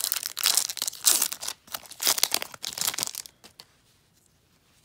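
Foil wrapper of a Pokémon Team Up booster pack being torn open and crinkled by hand. The crackling lasts about three seconds, then stops, leaving a few faint ticks.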